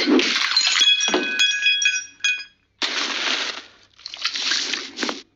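Cartoon sound effect of glass smashing: a crash, then high tinkling rings of shards for about a second and a half. Two separate bursts of noise follow later on.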